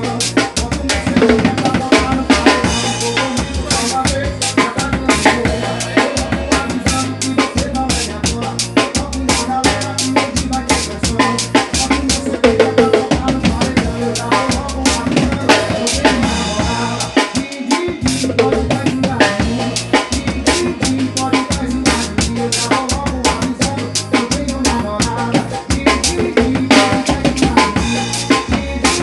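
Music with a drum kit beat: steady bass drum and snare hits over a heavy bass line.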